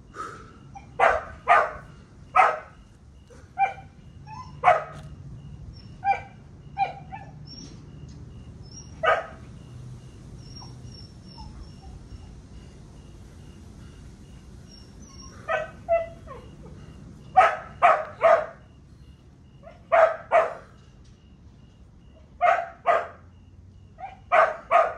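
A dog barking repeatedly in short bunches of one to three barks, with a lull of several seconds in the middle.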